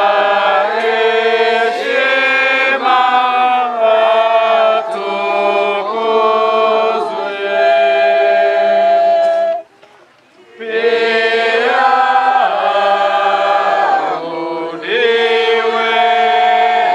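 Church choir singing in long held phrases, with several voices on different notes at once; the singing breaks off briefly about ten seconds in, then resumes.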